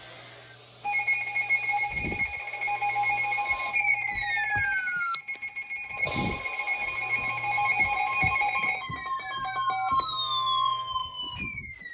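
Emergency Alert System alarm tones: a steady two-tone attention signal overlapped by falling alert tones that sweep down several times, as though more than one alert plays at once.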